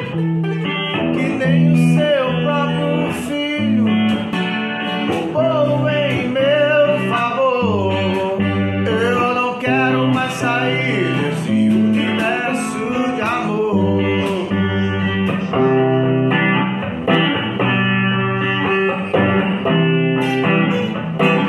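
Instrumental intro of a worship song: a guitar plays a melody with bending, sliding notes over a bass line that changes note every second or two.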